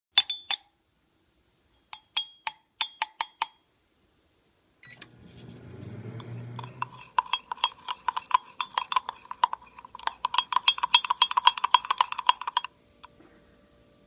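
A metal spoon clinking against a ceramic mug: a few sharp, ringing taps, then a fast run of clinks for about six seconds as the spoon stirs and beats a mixture inside the mug, stopping abruptly near the end.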